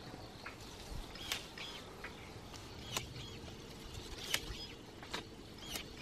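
Water sprouts and leaves being snapped and cut off a Fuji apple tree: about eight irregular sharp clicks and snaps with light leaf rustling.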